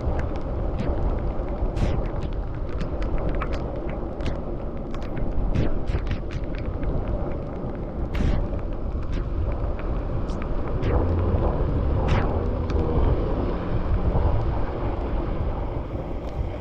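Wind buffeting the camera microphone on a moving bicycle, a dense steady low rumble, with many sharp ticks and clicks scattered through it.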